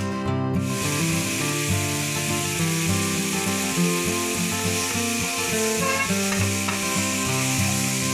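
Chicken pieces frying and sizzling in hot oil in a nonstick pan, stirred with a wooden spatula. The steady sizzle sets in about half a second in. Background music plays underneath.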